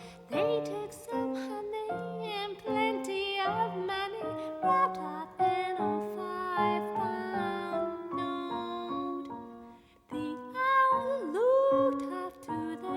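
Song with piano accompaniment and a female voice singing, the voice sliding between notes; the music drops away briefly about ten seconds in, then voice and piano come back in.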